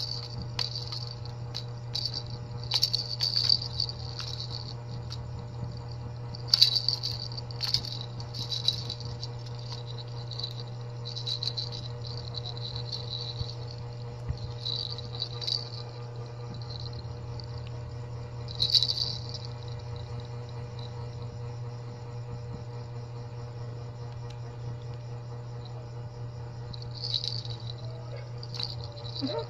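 Plastic baby rattles shaken in short bursts again and again with pauses, a dry, high rattling of loose pieces inside the toy. The shaking is busiest in the first half, with one burst a little past the middle and a few more near the end.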